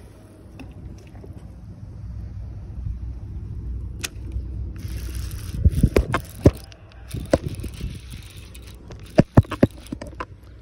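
Wind rumbling on the microphone, with a run of sharp clicks and knocks and two stretches of hiss as a fishing rod and reel are handled.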